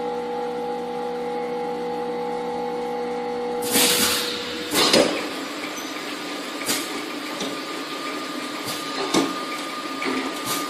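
Automatic four-head edible-oil filling machine. A steady hum with a held tone runs while the bottles fill and stops nearly four seconds in. Two sharp pneumatic air hisses follow as the nozzles lift and the line moves on, then the conveyor runs under scattered clacks from the air-cylinder bottle gates and the plastic bottles.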